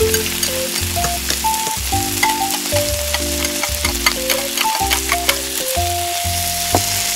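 Hot oil sizzling and crackling in a small steel wok as raw squid pieces go in and are stirred with a small utensil, with background music playing throughout.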